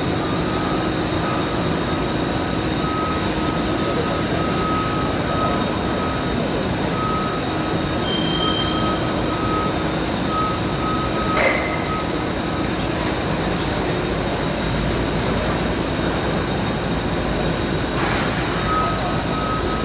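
Factory-floor machinery noise, steady and loud, with a short electronic beep repeating over several seconds and one sharp metallic knock about halfway through.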